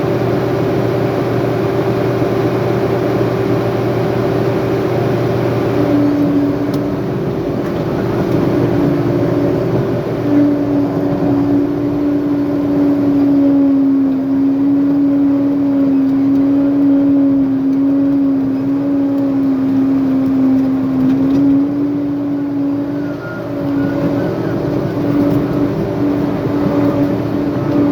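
Diesel engine of a heavy earthmoving machine running steadily as it works, its pitch dropping a little about six seconds in and holding lower through the middle before shifting again near the end.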